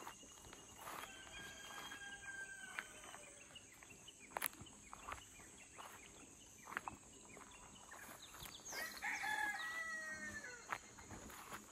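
A rooster crowing twice: a fainter drawn-out crow near the start and a louder one near the end that falls in pitch as it closes. A few light clicks and steps on grass come in between.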